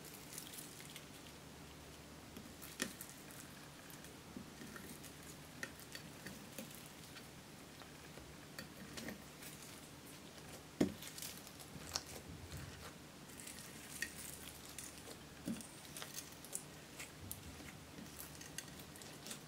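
Clear slime being kneaded and pressed by hand, with glitter, sequins and crushed eyeshadow mixed in: faint wet squishes and scattered sticky clicks and pops, one louder pop about eleven seconds in.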